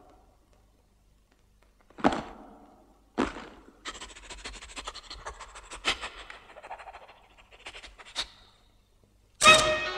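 Cartoon sound effects. Two sharp knocks about a second apart are followed by a few seconds of scratchy clicking and rustling. A sudden loud burst of music comes near the end.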